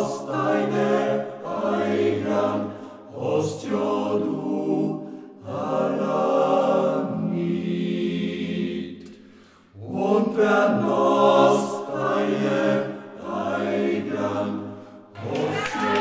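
Men's choir singing in harmony, phrase after phrase, with short breaks between phrases and one longer pause about halfway through.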